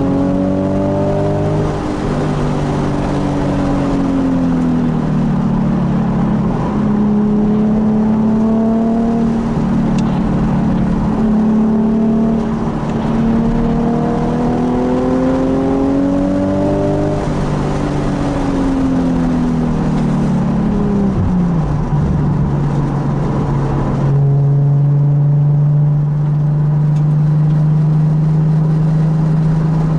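Nissan 370Z's 3.7-litre V6 running hard on track. The engine pitch climbs and drops several times, then holds steady for the last few seconds.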